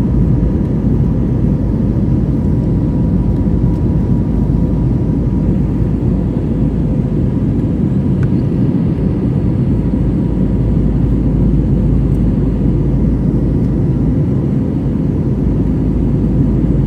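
Steady engine and airflow noise inside the cabin of an Airbus A320neo climbing after takeoff, heard by a window seat over the wing, with a faint steady high hum on top.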